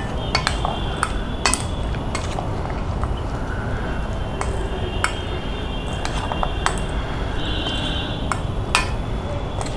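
Metal spoon stirring a wet mix of chopped vegetables and peas in a stainless steel bowl, with irregular clinks and scrapes as the spoon hits the bowl's side.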